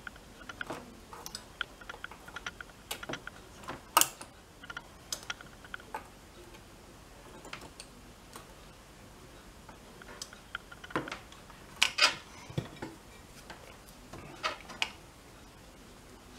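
Irregular light clicks and taps from a hemostat and a circuit board being handled, with a few louder clacks about four seconds in and again around twelve seconds.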